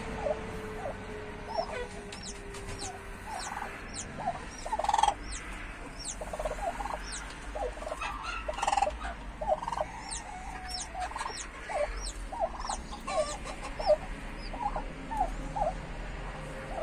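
Brooding turkey hen giving many short, soft clucks in an irregular series, with thin high peeps from newly hatched chicks under her.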